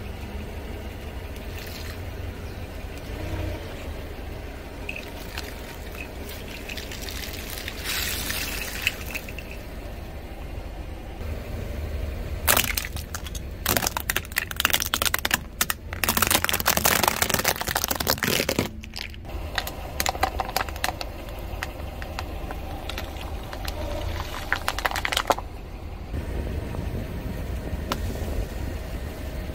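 A car tyre rolling slowly over plastic toys and filled pouches, crushing them: plastic cracking and snapping, and liquid and water beads squelching and spilling out. The cracking comes in a dense run from about twelve to nineteen seconds in and again briefly later, over a steady low rumble.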